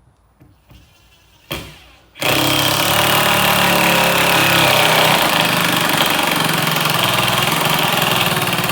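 A cordless power driver running a 1 5/8-inch screw through a floor board into a boat stringer: a loud, steady whine with a fast rattle that starts about two seconds in and runs about seven seconds.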